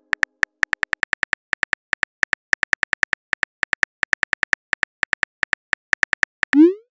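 Simulated phone keyboard clicks from a texting app, tapping rapidly at about six a second as a message is typed. Near the end comes a short rising swoosh as the message is sent.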